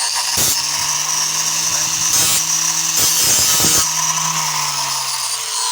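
Angle grinder with a large cutoff wheel spinning at full speed and cutting into a doorknob's metal casing: a steady high whine with a lower hum, broken several times by sharp, harsh bites as the wheel digs in. The sparking during the cut shows the casing is steel, not brass.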